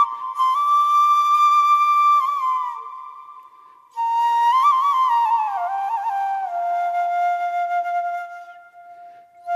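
Background music: a solo flute melody with small ornamental turns, in two phrases, each ending on a long held note that fades away.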